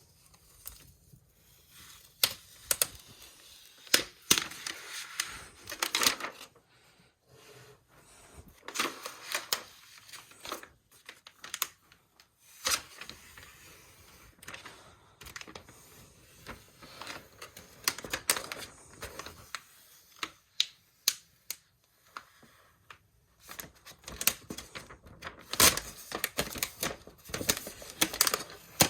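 Protective plastic film being peeled off the back of a new iMac, crinkling and crackling, with many sharp irregular clicks and snaps and some longer rustling stretches.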